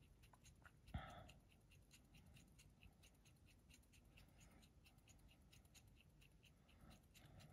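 Faint, even ticking and scraping of a hand-twisted pin vise drilling a 1.5 mm bit slowly through thin 0.2 mm aluminium sheet, about five ticks a second, with a soft bump about a second in.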